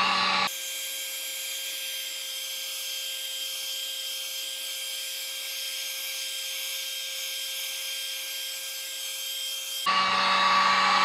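Heat gun running on its low setting, a steady blowing rush with a fan whine, aimed at EVA foam to seal its surface. About half a second in, the sound abruptly turns thinner and quieter with no low end, and near the end it comes back full.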